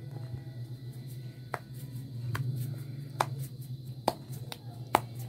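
Hands pulling off and shaping risen maida dough into balls, with soft handling noise and a sharp little click or pat about every 0.8 s, five in all, over a steady low hum.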